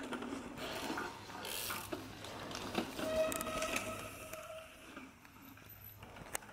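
Mountain bike going past, its freehub ratchet clicking as the rider coasts.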